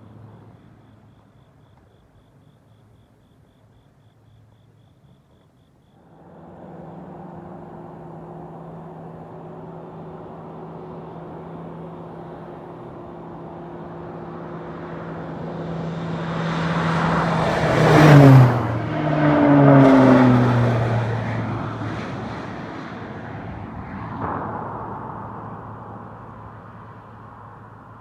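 Crop-duster airplane's engine on a low spraying pass. Its drone comes in about six seconds in and grows louder as the plane approaches, peaks twice as it passes close by with its pitch dropping sharply, then fades away.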